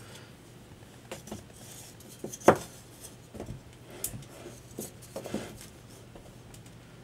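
Scattered knocks and scrapes as the uncased Agilent E3632A bench power supply's metal chassis is handled and set down on a wooden block, then shuffled into place. One sharp knock about two and a half seconds in is the loudest.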